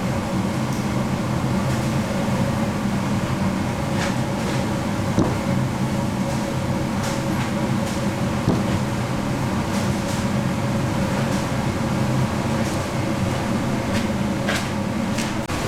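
Steady hum and drone of candy-factory machinery, with a few brief knocks about five and eight seconds in.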